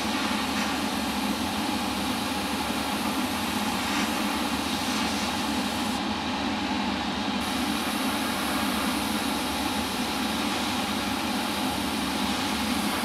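Harder & Steenbeck Infinity CR Plus airbrush hissing steadily as it sprays paint, over a steady low mechanical hum. The highest part of the hiss cuts out for about a second and a half around six seconds in, then comes back.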